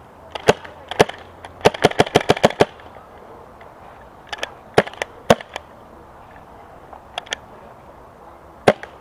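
Paintball markers firing during a game: sharp pops, singly and in pairs, with a rapid string of about nine in a second around two seconds in.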